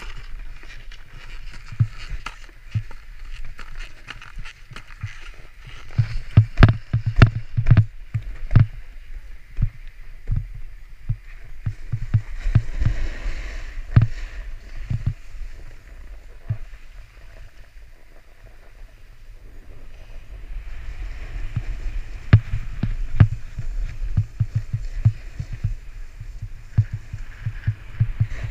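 A snowboard sliding and scraping over packed snow, with wind buffeting the rider's camera microphone: a steady low rumble and hiss, broken by many sharp knocks as the board chatters over bumps. It eases off for a few seconds past the middle, then picks up again.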